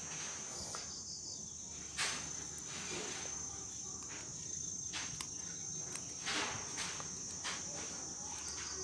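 Insects, crickets by the sound, chirring in a steady high-pitched trill, with a few faint clicks from a rubber band being wound and knotted onto a wooden twig.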